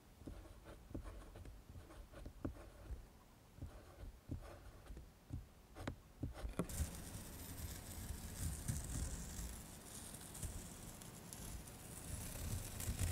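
Pencil writing on oil pastel-coated paper: short, scattered scratching strokes and ticks. About six and a half seconds in, these give way to a steady hiss with low rumbling.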